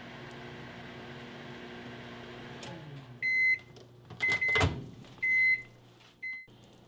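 Microwave oven running with a steady hum that shuts off a little over two and a half seconds in at the end of its one-minute heating cycle, then the end-of-cycle beeps, four short high beeps about a second apart. The door latch clunks open between the second and third beep.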